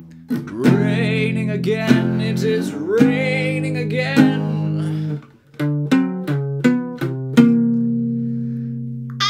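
A man singing with vibrato while strumming a classical guitar; about five seconds in the voice stops and a run of quick strummed chords follows, the last chord left to ring and fade.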